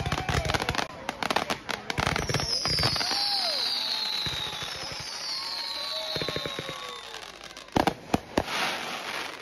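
Aerial fireworks going off: a dense run of rapid crackling and popping, then two falling whistles, then two loud bangs about eight seconds in followed by a burst of crackling.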